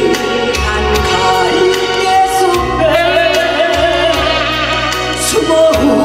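A woman singing a Korean ballad into a microphone over a band accompaniment with a steady beat and bass.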